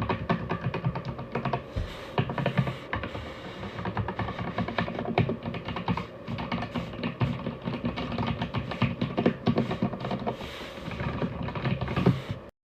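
Rapid typing on an Aigo Darkflash GD100 mechanical keyboard, a fast run of key clacks, over background music. Both stop abruptly near the end.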